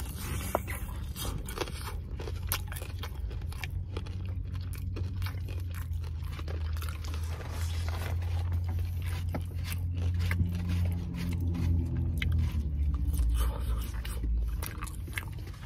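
A person chewing and biting food close to the microphone: crunching with many small wet mouth clicks, over a steady low hum.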